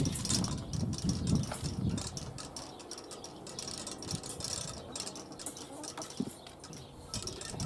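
Scattered small clicks and taps of wire and a wooden trap trigger being handled and fitted, with low wind buffeting on the microphone, heaviest in the first two seconds.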